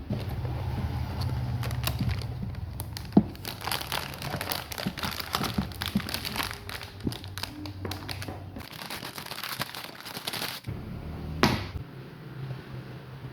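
Plastic packaging of a Gundam SD BB model kit crinkling as it is handled, with dense crackling in the middle and sharp knocks about three seconds in and again near the end. A low steady hum runs underneath.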